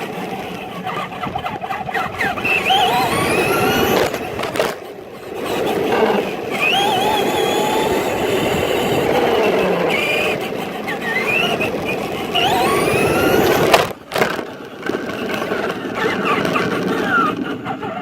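RC truck driving, its motor whining up and down in pitch as it speeds up and slows, over a steady rumble of the wheels on the ground, heard close up from a phone mounted on the truck. The sound drops out briefly twice, about four and a half and fourteen seconds in.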